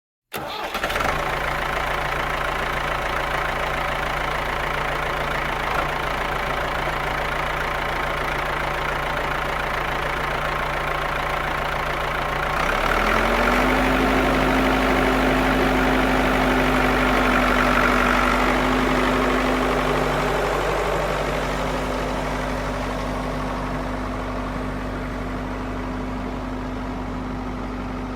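An engine starting and then running steadily; about twelve seconds in it shifts to a higher, louder pitch, then eases slightly quieter toward the end.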